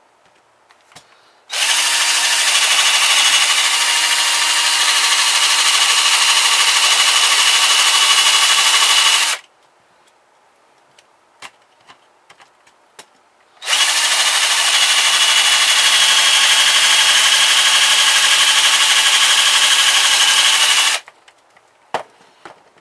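Electric drill running under load, drilling out a stripped screw, in two steady runs of about seven seconds each with a short pause between.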